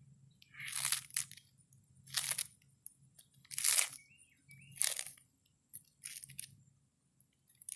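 A sulcata tortoise biting into a hand-held romaine lettuce heart, the crisp leaves crunching and tearing with each bite. There are about six bites, roughly one a second, the later ones softer.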